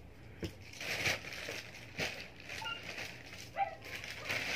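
Plastic courier mailer bag rustling and crinkling as it is handled and pulled open, with a few light knocks.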